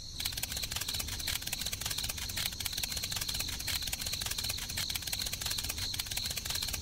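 Rapid, even clicking with a steady high-pitched tone running through it.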